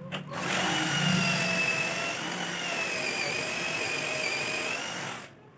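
Cordless drill running under load, drilling a hole into plywood through a wooden guide block. The motor whine starts about half a second in, holds a fairly steady pitch with a slight dip midway, and stops shortly before the end.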